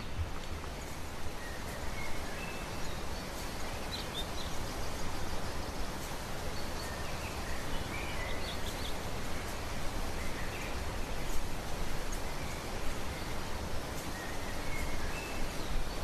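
Forest ambience: a steady rustling hiss with a low rumble underneath, and scattered short, high bird chirps throughout.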